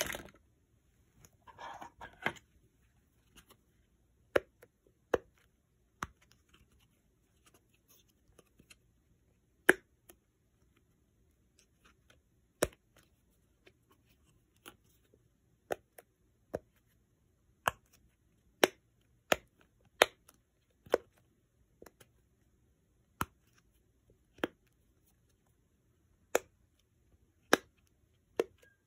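Silicone bubbles of a Simple Dimple fidget toy popping as a finger presses them one at a time: single sharp pops about once a second, with a short rustle of handling about two seconds in.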